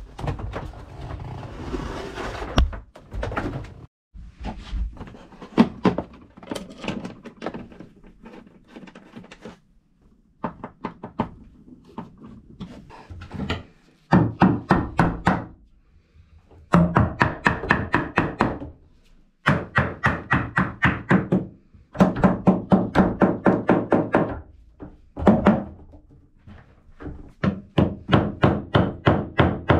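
Hammer striking a timber batten in rapid bursts of about five blows a second, with short pauses between bursts, knocking it into place.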